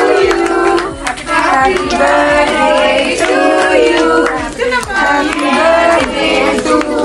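Several voices singing a birthday song together, with hand claps.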